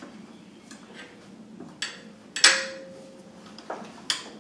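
Steel pry bar and tools clinking and knocking against the metal of the engine bay, with one sharp clank about two and a half seconds in that rings briefly on a single note.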